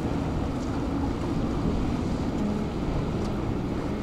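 Boat engine running with the steady wash of waves and water, and some wind on the microphone.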